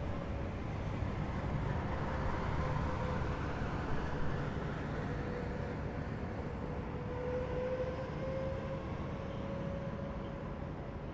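Heavy military vehicles driving past at close range: a steady low engine rumble with a thin whine that rises slightly in pitch midway and fades near the end.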